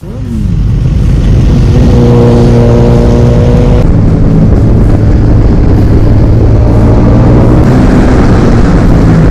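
Sport motorcycle engine running hard at speed on a race track, with wind rushing past an onboard camera. The engine note holds steady, then changes about four seconds in and again near eight seconds.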